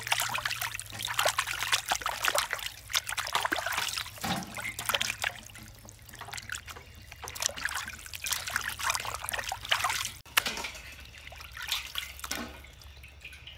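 Water sloshing and splashing in a stainless steel basin as hands rub and wash raw chicken leg quarters, with water dribbling off the pieces as they are lifted out. The splashing comes in irregular bursts and quietens near the end.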